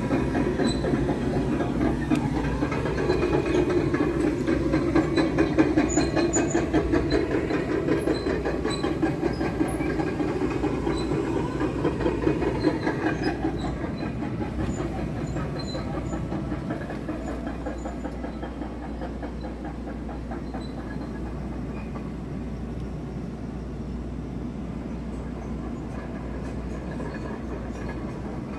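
Scania R tractor unit's diesel engine idling, a fast, even pulsing. It grows quieter about halfway through, heard from inside the cab.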